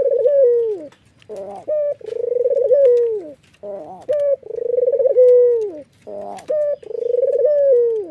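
White Barbary dove (puter) giving its bow-coo: about three rolling coos, each opened by short notes and ending in a downward slur, repeated about every two and a half seconds.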